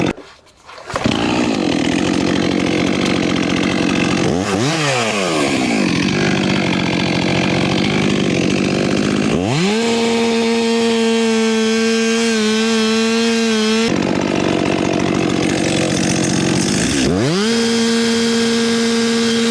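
Chainsaw cutting into a tree trunk, its engine note low and bogged under load. Twice it climbs to a high, steady whine at full revs, once about nine seconds in and again near the end, as the chain runs free.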